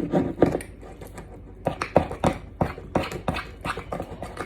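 Metal spoon knocking and scraping against a mug while stirring thick chocolate cake batter, in a run of irregular knocks about two or three a second.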